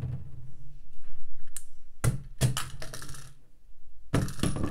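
Small objects, steel embroidery scissors and a small tin, dropped onto linen stretched drum-tight on a cross-stitch frame, landing in quick clusters of sharp taps and clicks, one about two seconds in and another near the end.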